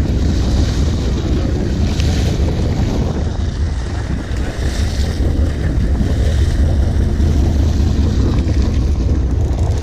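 Wind buffeting the microphone over the steady low rumble of a sportfishing boat at sea, with the wash of water along the hull.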